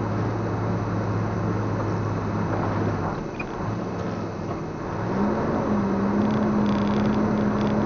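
Vehicle engine droning steadily, heard from inside the cab, easing off about three seconds in, then revving up to a higher steady note about two seconds later, over the hiss of tyres on a wet road.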